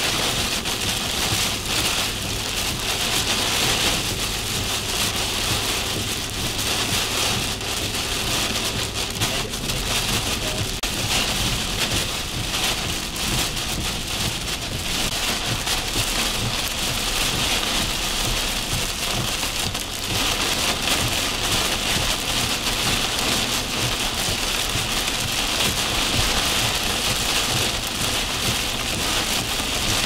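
Heavy, blinding rain pounding steadily on a vehicle's windshield and roof, a dense patter of drops heard from inside the vehicle.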